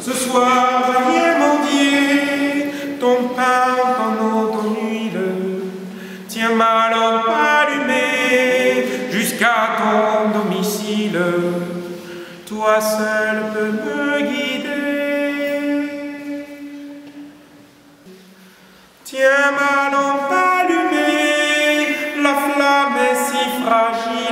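Unaccompanied hymn singing in held, slowly moving phrases, with a short break about three quarters of the way through before the singing resumes.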